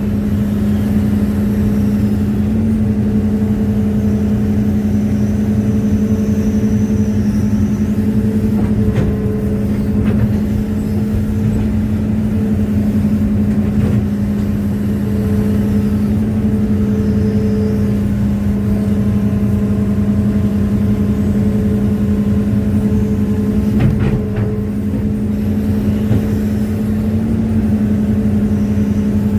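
Hitachi excavator's diesel engine running steadily at constant speed: one continuous low drone, with a few faint clicks and knocks about nine seconds in and again near twenty-four seconds.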